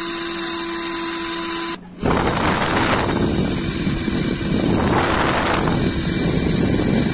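Homemade electric toy jet engine, a high-speed DC motor spinning a small fan inside a plastic-bottle housing, running with a steady whine and hiss. About two seconds in it drops out briefly and comes back as a louder rushing noise with rumble, its exhaust air blowing onto the microphone from the rear nozzle.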